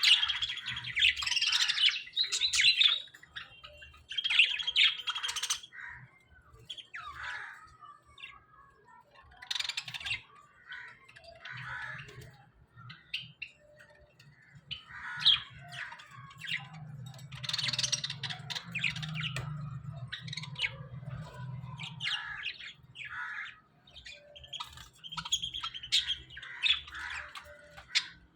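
A small flock of budgerigars chirping in irregular bursts of overlapping calls, with a low hum underneath through the middle stretch.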